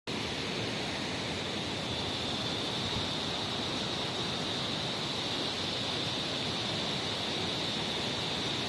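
Waterfall rushing steadily, an even hiss of falling water with a thin steady high-pitched whine on top.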